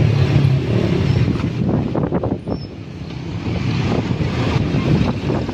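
Motorcycle engine running while riding through street traffic, with other motorbikes around and wind noise on the microphone.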